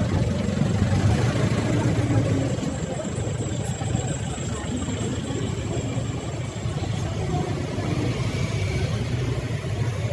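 Street traffic: vehicle engines running and idling, a steady low rumble under a constant wash of road noise.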